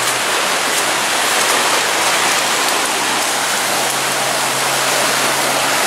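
Floodwater from a broken city water main rushing through a yard in a steady, loud torrent, with a faint low hum underneath.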